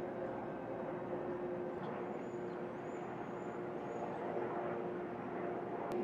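Steady shipyard background hum with a constant low tone, with a few faint high chirps midway and a sharp click near the end.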